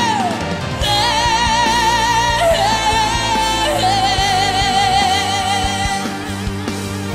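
Song performance: a high male voice holds long notes with vibrato, sliding down between them, over band accompaniment.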